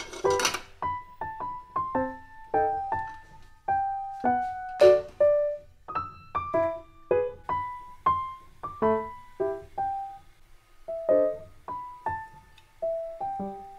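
Background piano music: a light melody of single struck notes, one after another, each fading away.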